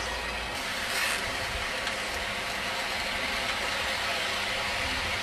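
Hornby model steam locomotive hauling a rake of Bachmann coaches past at close range: a steady running noise from the loco's electric motor and the coach wheels on the track.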